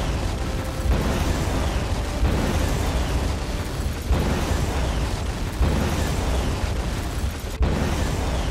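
Film soundtrack: a heavy, deep rumble with a booming hit every one to two seconds.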